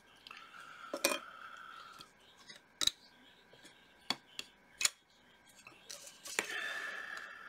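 Sharp clicks and taps from a metal photo-etch bending tool being handled, its clamp and parts knocking together about six times, with soft scraping between the clicks.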